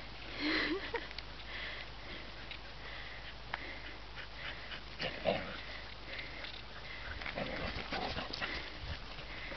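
A dog's short, rising whine about half a second in. Faint high chirps come and go, and a few light ticks are heard. Wind rumbles on the microphone near the end.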